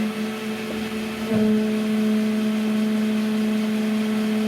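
Berco RTM260A crankshaft grinder running under power, giving a steady motor hum. About a second and a half in, the hum steps up in loudness and takes on a higher tone.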